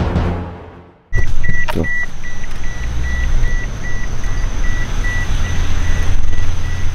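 Intro music with deep drum hits fading out in the first second. Then a car idling, with a dashboard warning chime beeping rapidly and evenly, about four high beeps a second, and a single click near the start.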